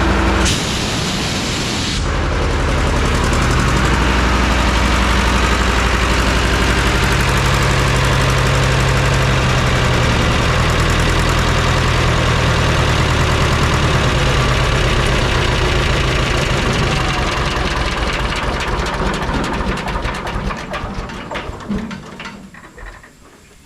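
Two-cylinder diesel engine of a 1963 American Jenbach air compressor running, just brought back to life after years of sitting. It dips briefly near the start, then runs steadily. In the last few seconds it shuts down, its beats slowing and fading to a stop.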